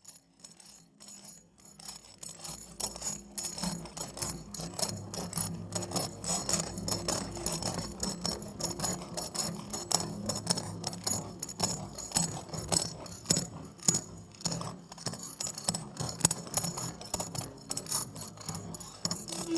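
Instrumental music fading in: quick, dense jingling and rattling percussion over a low, sustained drone.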